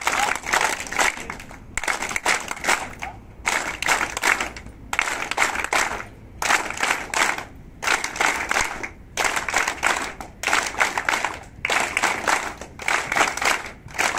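A group of people clapping in about ten short bursts of a second or so each, with brief pauses between them.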